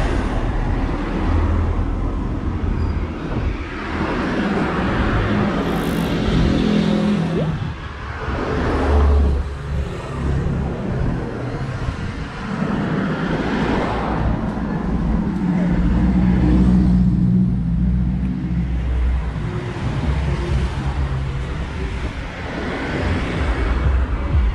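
Street traffic: cars and heavier vehicles passing close by one after another, tyre and engine noise swelling and fading with each pass over a deep, steady engine rumble.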